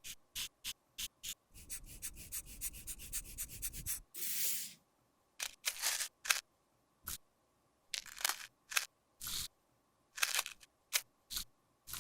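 Tapping and scraping of tools working cosmetic products. It starts with a quick run of small ticks over about two seconds, then a brief scraping hiss about four seconds in, then scattered separate taps and scrapes.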